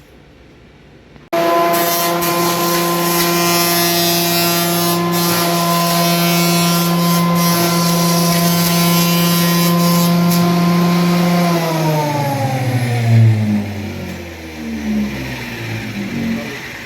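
Ryu 12-inch portable thickness planer's motor and cutter head switched on about a second in, running at steady speed with a loud whine, then switched off and winding down with a falling pitch near the end.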